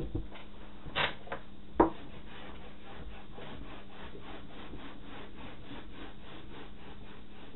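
A handheld whiteboard being wiped clean, rubbed in quick even back-and-forth strokes about four a second. The rubbing follows a couple of light knocks as the board is handled.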